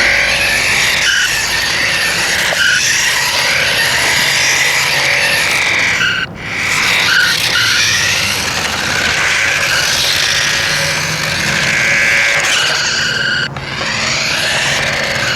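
RadioShack Sound Bat 2 toy playing loud electronic sound effects: squealing tones that sweep up and down in pitch, with brief breaks about six seconds in and again near the end.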